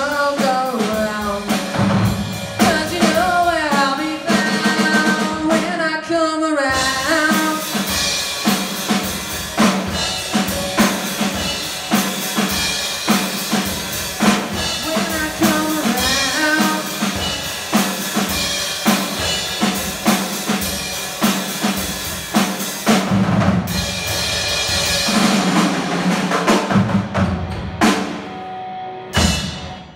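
Live rock band playing: busy drum kit with electric guitar and a singer on microphone. The music cuts off near the end.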